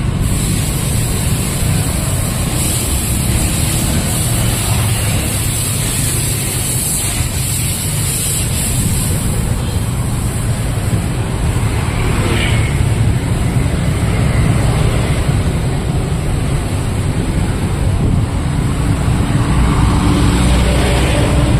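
Steady road traffic noise: passing vehicles, with a continuous low rumble that grows a little louder near the end.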